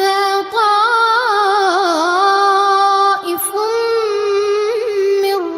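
A child's high voice reciting the Quran in melodic tajweed style, drawing out long held notes with small ornamental turns and pausing briefly for breath partway through.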